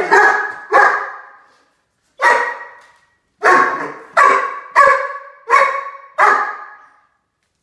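Harlequin Great Dane puppy barking at a cat: about eight loud barks, two close together at the start, then a pause and a run of six about two thirds of a second apart. Each bark trails off in the echo of a tiled bathroom.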